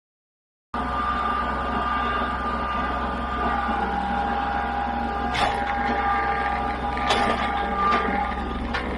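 A small motor running steadily, starting abruptly just under a second in; its pitch drops a little a few seconds in, and a few sharp knocks sound over it in the second half.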